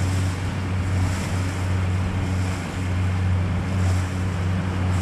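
A boat's engine running with a steady low hum, over the rush of wind and sea water around the hull.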